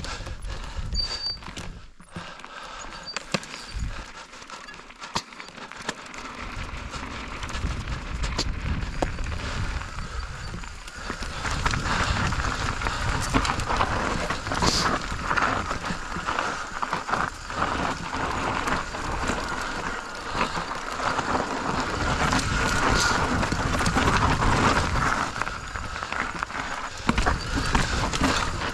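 Mountain bike riding down a rough trail: tyres on dirt and rock, with dense rattling and clicking from the bike. It gets louder from about eleven seconds in.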